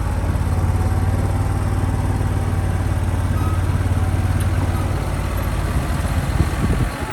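John Deere 6155M tractor's diesel engine running at a steady drone, heard from the cab; about six seconds in the drone breaks up and drops as the engine is throttled back.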